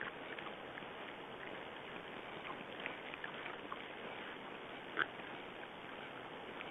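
Raccoon dogs feeding over a steady hiss: faint scattered ticks and snuffles, with one short, louder call about five seconds in.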